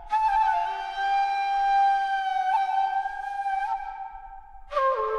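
Shakuhachi, the Japanese end-blown bamboo flute, playing a long held note that bends slightly in pitch and fades away. Near the end a new phrase begins on a lower note with a sharp attack.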